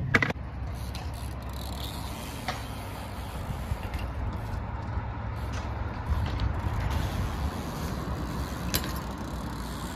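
Bike and skateboard wheels rolling on concrete, a steady low rumble, with a sharp knock right at the start and a few lighter knocks later on.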